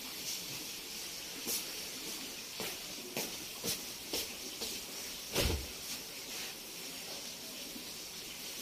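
Bedding being handled: blankets and sheets rustling and flapping as they are shaken out and gathered, with a string of light knocks and one heavier thump about five and a half seconds in. A steady hiss runs underneath.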